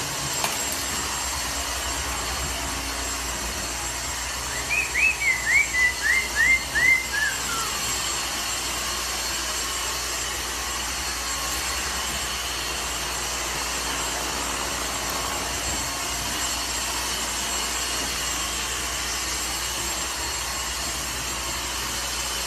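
A parrot's call: a quick run of about seven short chirps a few seconds in, each sliding down in pitch, the series stepping lower as it goes. A steady hiss of background noise runs throughout.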